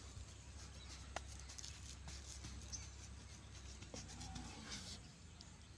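Faint scratchy rustling with small scattered clicks from hands working damp soil around a newly planted ivy gourd seedling, over a low steady rumble.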